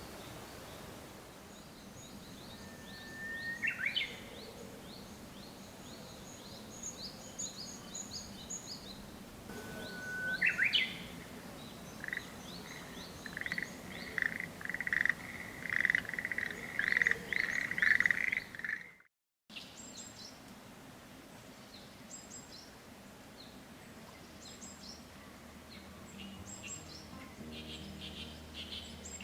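Wild songbirds singing. A held whistle rises into a quick flourish twice, then a long run of rapid, loud repeated notes, with fainter high chirps from other birds behind. After a short break, softer high chirping continues with music coming in near the end.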